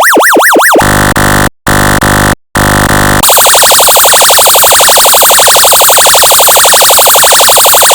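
Function-generator electronic siren tones, changing pattern. A yelp sweeping up and down about four times a second gives way, about a second in, to three blasts of a buzzing horn tone. From about three seconds in comes a much faster, shrill warbling siren.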